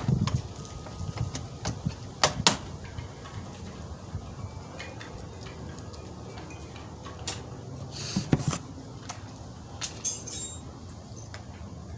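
Hand work on a vehicle door: scattered clicks and knocks, a louder brief clatter about eight seconds in, and a short metallic jingle like keys about ten seconds in.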